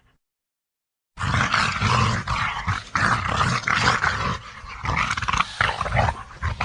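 Gorilla growling and roaring: a run of rough, noisy calls with several surges, beginning about a second in after silence.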